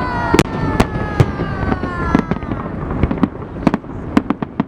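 Fireworks salute going off overhead: a rapid, uneven string of sharp bangs, with a falling whistle in the first half that fades out about two and a half seconds in.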